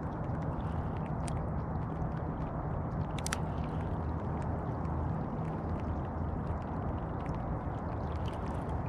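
Steady wash of water noise around a float tube on a pond in light rain, with a couple of sharp ticks about one and three seconds in.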